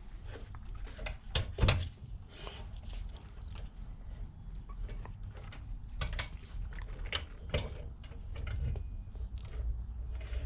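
Light metal clicks and knocks from setting a motorcycle wheel's balancer axle down onto the balancer stand and handling it, the loudest knock about two seconds in, over a low steady hum.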